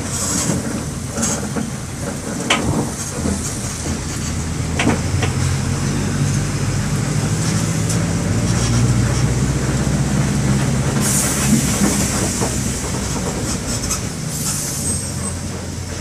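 Mercedes-Benz OM-924 LA four-cylinder inline turbodiesel of an OF-1722M bus running steadily, a low engine drone with scattered rattles and clicks. A brief hiss comes about eleven seconds in.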